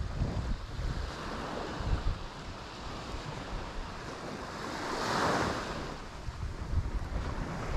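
Small sea waves breaking and washing up the beach, with one wash swelling up about five seconds in. Wind buffets the microphone in uneven low gusts.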